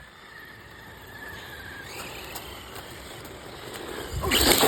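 Hobby-grade RC car's electric motor whining faintly as it drives, then a loud rushing noise near the end as the car speeds past close by.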